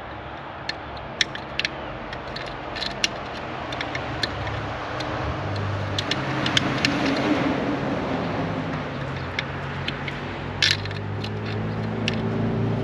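Small irregular metal clicks and scrapes of a hand pick digging at a clogged screw head in a boat's dashboard, over a steady low engine hum.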